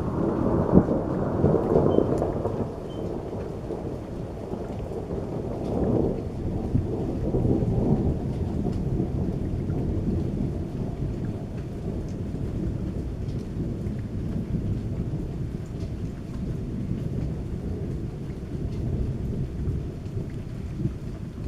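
Rolling thunder with rain falling. It is loudest in the first few seconds, swells again around six and eight seconds in, then trails off into a long low rumble.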